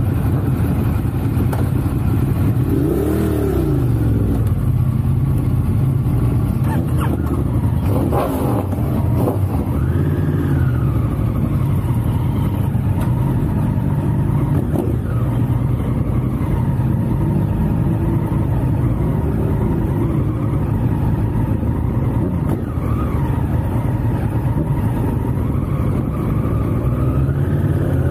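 Sport motorcycle engines running during a group ride, over a steady low rumble. Several times the pitch rises and falls as the bikes are revved and pull away.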